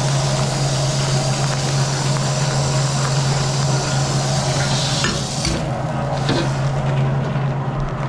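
Water running from a tap into a wok, a steady rushing splash, over a constant low hum of kitchen machinery. The rush of water falls away about five and a half seconds in, leaving the hum and a few light knocks.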